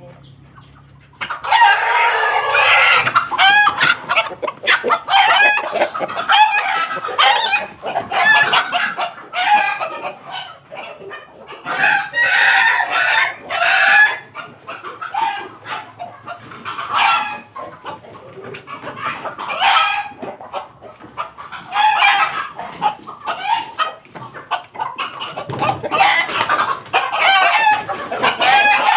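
Several roosters crowing loudly, one call after another and overlapping, with clucking between; the birds are of the Indonesian pelung, Bangkok and ketawa (laughing-chicken) breeds. The calls start about a second in.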